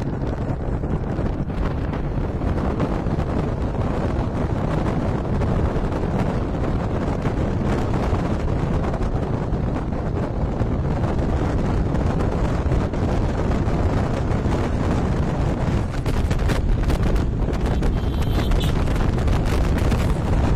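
Heavy wind buffeting the microphone over the steady rumble of a moving vehicle.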